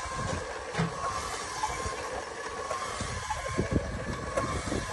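Electric spit motor of a charcoal souvla rotisserie running with a steady whine, over a low rumble as the skewers turn above the coals.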